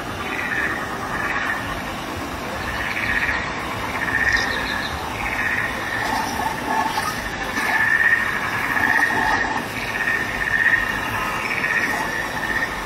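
Insect-like chirping calls repeating about once a second over the steady rush of a small waterfall spilling into a pond.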